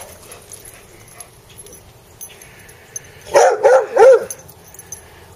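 Dog giving three quick, high, yipping barks in a row about three seconds in, eager to play.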